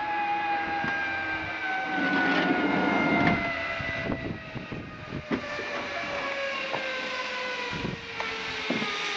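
Zipline trolley pulleys running along the steel cable: a steady metallic whine with several overtones that slides slowly down in pitch, with a few short knocks along the way.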